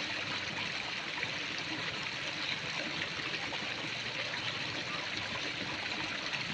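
Steady rushing and trickling of flowing water, an even hiss with no breaks.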